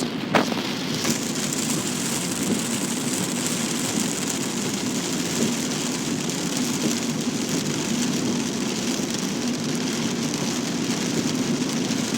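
Rain falling steadily on a moving car, heard from inside the cabin, over the low hum of the road and engine. A single sharp click sounds just after the start.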